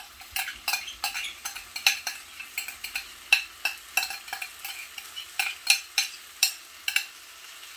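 A utensil tapping and scraping the inside of a glass bowl in a quick, irregular run of sharp clicks as sauce is emptied into a frying pan, with the pan frying faintly underneath.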